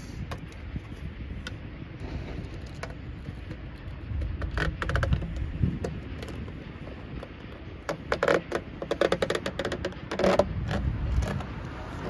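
An air-conditioner line cover being slit lengthwise, heard as a series of short clicking, scraping cuts. They come in a burst about five seconds in and again from about eight to eleven seconds.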